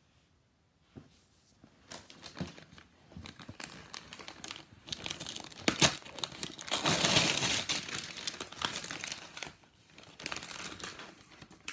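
Shiny gold gift-wrapping paper crinkling and tearing as a present is unwrapped by hand. It starts a second or two in, is loudest around seven to nine seconds in, then eases off near the end.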